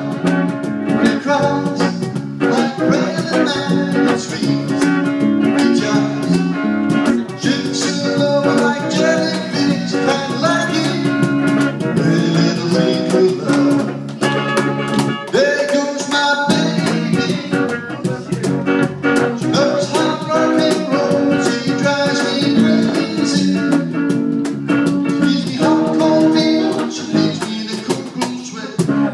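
A live band playing, with guitar to the fore and a singer's voice over it.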